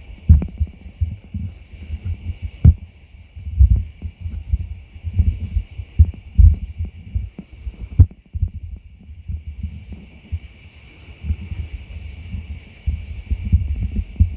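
Crickets chirping in a steady chorus, with irregular low thumps and knocks from a camera being handled and adjusted close to the microphone.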